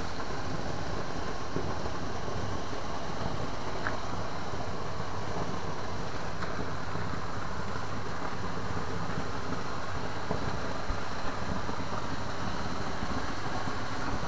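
Steady rushing background noise with no speech, and a couple of faint clicks about eleven seconds in.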